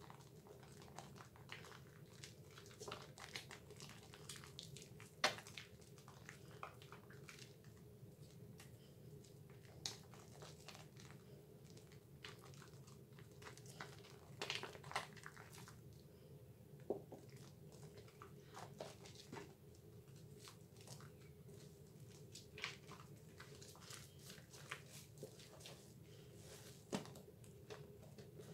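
Hands kneading a thick lather of Dove bar soap, making faint wet squishing with irregular small crackles and squelches of foam, over a steady low hum.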